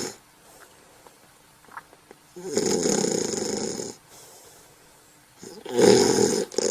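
A sleeper snoring: two long snores, one starting about two and a half seconds in and lasting over a second, the other starting near the end.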